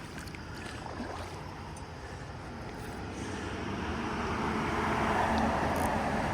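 Steady rush of flowing creek water, swelling louder from about three seconds in.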